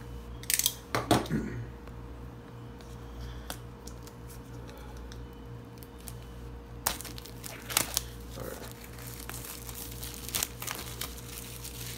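Clear plastic shrink wrap being slit and peeled off a steel Blu-ray case. A few sharp clicks and scratches come about a second in, then dense crinkling and tearing of the wrap from a little past the middle, over a steady low electrical hum.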